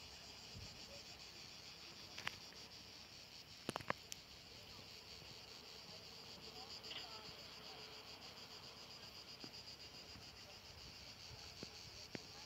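Faint, steady chorus of summer insects chirring high in the hillside vegetation, broken by a few sharp clicks about two and four seconds in.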